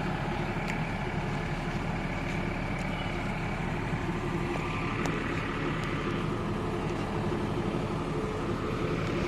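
A steady hum and background noise with a few faint clicks, and no music playing.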